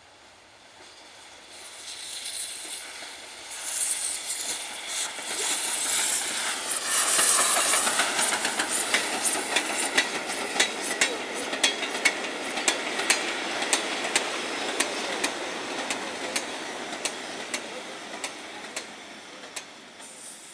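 Steam train passing: the locomotive's exhaust chuffs and steam hiss build up and peak about seven seconds in, then the coaches' wheels click over rail joints at about two clicks a second, slowly fading.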